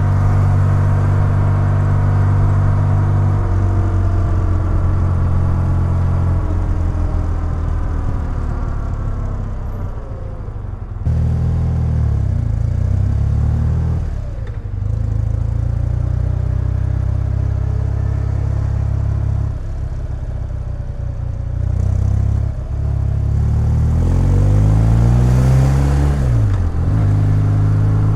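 BMW R100GS's air-cooled boxer-twin engine running on the move, its pitch falling as the bike slows and rising again as it pulls away, several times over.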